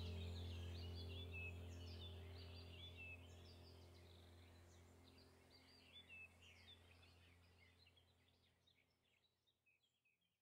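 Faint birds chirping over a steady low hum, the whole background fading out gradually.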